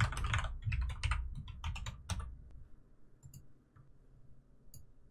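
Typing on a computer keyboard: a quick run of keystrokes for about two seconds, then only a few faint clicks.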